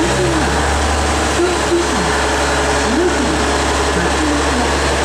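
Diesel generator engine of a JR Central HC85-series hybrid train idling as the train stands at the platform: a steady low hum.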